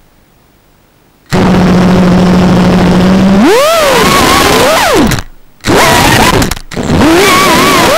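FPV quadcopter's brushless motors start suddenly on arming and idle at a steady hum under a loud hiss. After about two seconds they rev up and down with the throttle, the whine rising and falling in pitch. The sound cuts out briefly about five seconds in and again shortly after.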